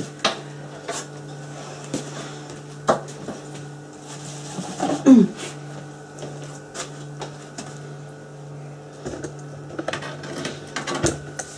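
A steady low kitchen hum with scattered clicks and knocks of utensils against a metal roasting tin, and scissors cutting into roast chicken near the end. A brief falling-pitched sound about halfway is the loudest moment.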